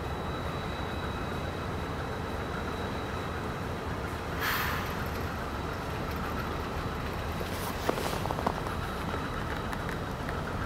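Low steady rumble of a distant approaching diesel locomotive. A brief hiss about four and a half seconds in and a few sharp clicks near eight seconds.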